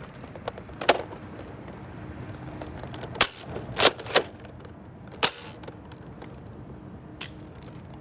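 Nerf foam-dart blasters firing: a handful of sharp pops at irregular intervals, a couple of them close together near the middle.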